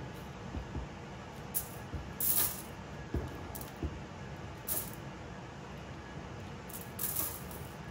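Silicone spatula scraping chocolate cookie crumbs out of a plastic food processor bowl, the crumbs falling onto a foil-lined pan: about five short scraping noises over a steady low hiss.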